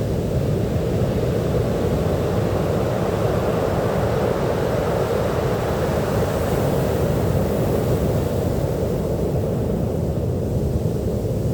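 Ocean waves breaking on a beach: a steady low rush of surf, with the hiss of a wave washing in swelling a couple of seconds in and easing off near the end.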